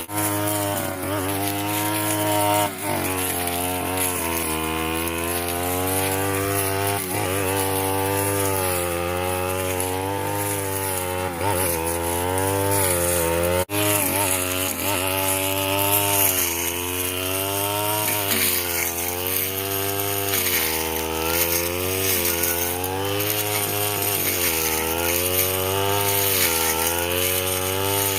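Brush cutter engine running under load as it cuts grass, its pitch rising and falling over and over as the throttle and load change, with a brief cut-out about halfway through.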